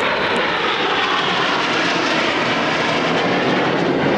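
A formation of BAE Hawk T1 jet trainers flying past overhead, their jet engines making a steady, even rushing noise.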